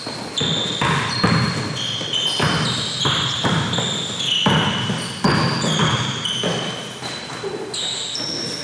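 Basketball being dribbled on a gym floor, bouncing two to three times a second, with short high squeaks from players' sneakers.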